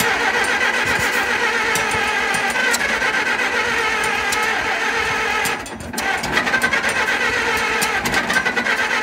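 Massey Harris 44 Standard gasoline engine being cranked over by its starter in an attempt to start it. The cranking stops briefly a little before the six-second mark and then resumes. The tractor has been sitting unused for a long time and has not yet run.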